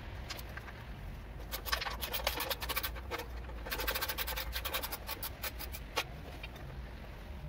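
Ratchet wrench clicking in two quick runs of rapid ticks, each about a second and a half, while undoing bolts on a small engine, with a single click a little later.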